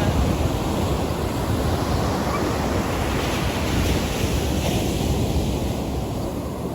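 Sea surf washing steadily on a beach, with wind rumbling on the microphone.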